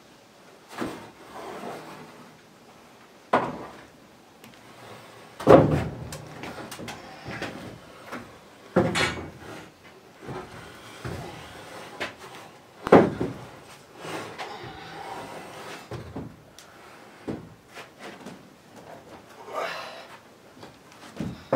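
Large metal-framed window panels being shifted and set down against wooden boards: irregular knocks, bangs and scrapes, with the loudest bangs about five and a half, nine and thirteen seconds in.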